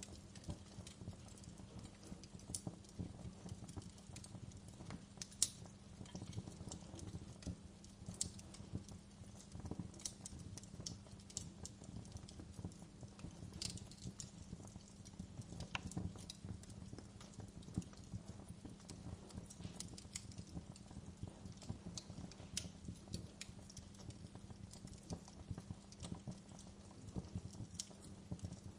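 Fire crackling: irregular sharp pops and snaps over a low, steady rumble of flame, with one louder pop about five seconds in.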